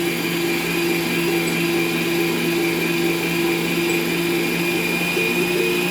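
Planetary stand mixer running steadily on its second speed, beating cake batter, with an even motor hum and whine.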